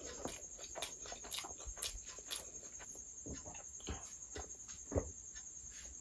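Close-up mouth sounds of eating rice and curry by hand: wet chewing, lip smacks and clicks in quick succession. In the second half she drinks from a glass, with a few gulps, the strongest about five seconds in.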